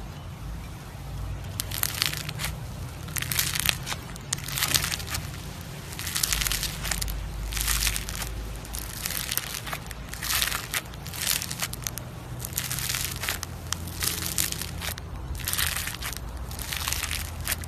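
Floam, slime packed with tiny foam beads, squeezed and pressed by fingers in a plastic tub. Each squeeze gives a crunchy crackling of popping beads, about a dozen irregular presses, each under a second long.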